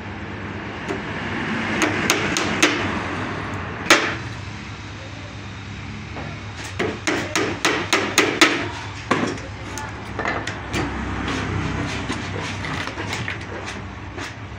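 A hammer striking, nailing thin wooden battens onto a plank panel. It starts with a few separate blows, then from about seven seconds in a quick run of strikes at about four or five a second, then a few last taps.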